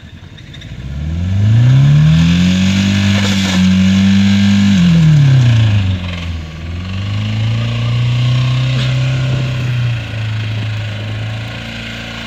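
Car engine revved hard and held at high revs for a few seconds, falling back briefly, then revved up and held high again. The engine is being deliberately over-revved to make it seize.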